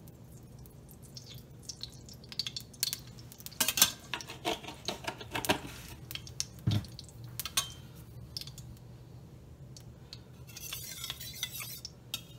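A long metal spatula clinking and scraping against a stainless steel pot, in scattered sharp clinks with a busier run a few seconds in, one duller knock, and a short scraping hiss near the end.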